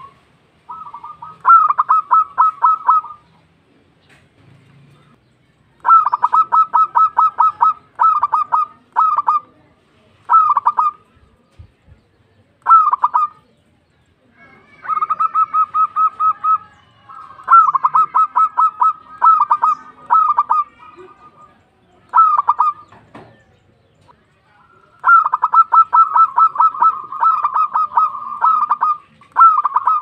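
Zebra dove calling: repeated phrases of rapid staccato cooing notes, each phrase lasting one to four seconds, with short pauses between phrases.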